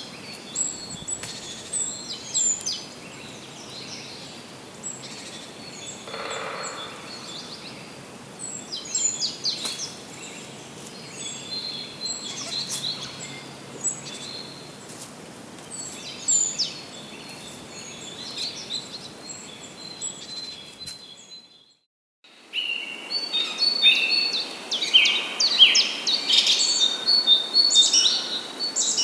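Songbirds chirping and calling in repeated short high notes over a steady background hiss. About three quarters of the way through, the sound drops out for a moment and returns with louder, busier birdsong.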